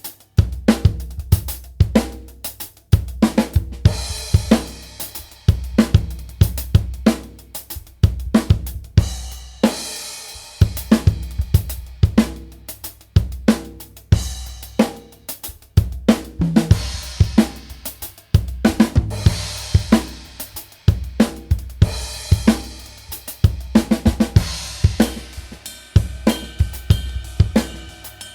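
Drum kit played in a steady groove on Arborea cymbals, with bass drum and snare hits under cymbals that swell into a bright wash every few seconds. A cymbal rings on with a steady tone near the end.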